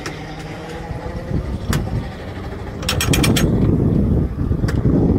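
Electric tram running on rails: a steady low rumble of the wheels with a faint motor hum, a quick run of metallic clicks about three seconds in, and the rumble growing louder from there.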